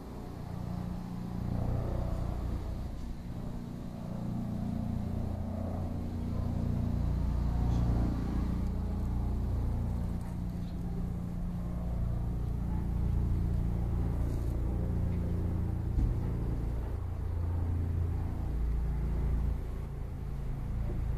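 Steady low rumble of road traffic, rising and falling slightly in level, with no distinct events.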